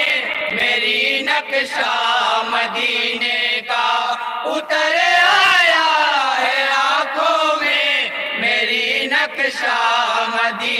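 A group of men chanting a naat, an Urdu devotional poem in praise of the Prophet, in chorus. The melody rises and falls over a steady held note.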